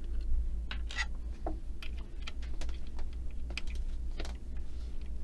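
Irregular light clicks and scrapes of a small screwdriver and fingers working the screws of a Juki TL-2010Q sewing machine's metal needle plate to loosen it for removal.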